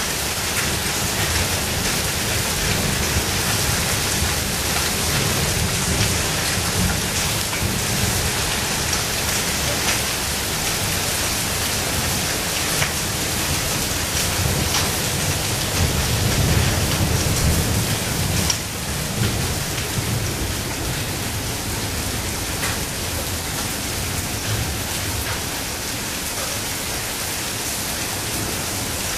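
Heavy rain and hail falling on a tiled patio: a dense, steady hiss with occasional sharper ticks. A low thunderstorm rumble underneath swells a little past halfway through.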